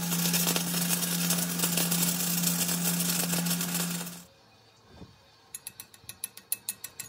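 A workshop machine running steadily with a low hum, cutting off abruptly about four seconds in. Then, after a short pause, a run of sharp, evenly spaced metallic clicks, about four a second.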